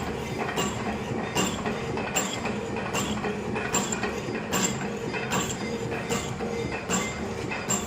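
CNC machine slotting a keyway in a bore: the cutting tool strokes back and forth with an even click about every 0.8 seconds over the machine's steady running noise.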